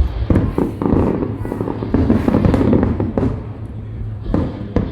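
Aerial fireworks shells bursting in a string of sharp bangs, over festival music with a steady bass.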